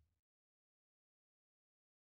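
Near silence: the last faint tail of the background music dies away right at the start, then complete silence.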